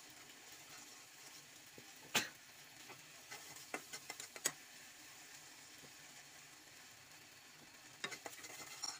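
Spatula stirring thick pizza sauce frying in a wok on a gas stove. There is a faint sizzle and a few sharp clicks of the spatula against the pan, the loudest about two seconds in.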